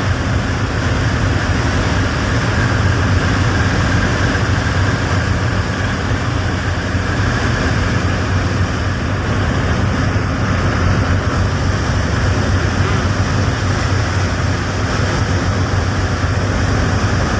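A steady engine hum running at an even level, with a constant wash of noise over it.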